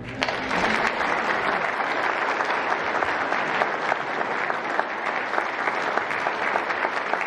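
Audience applauding: clapping breaks out all at once and keeps up at an even, full level.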